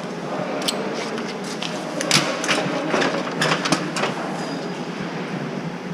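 Mini excavator at work: its engine runs steadily under a string of irregular sharp knocks and clatters, roughly a dozen.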